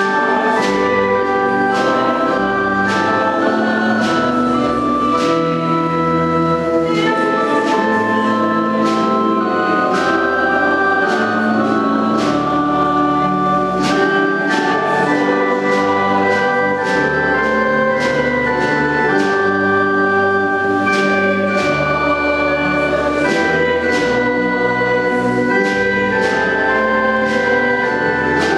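Organ music: a slow piece of held chords that change every second or so, each change marked by a crisp attack.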